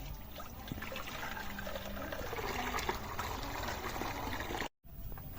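Water pouring and splashing in a steady rush, cut off for a moment by a brief dropout near the end.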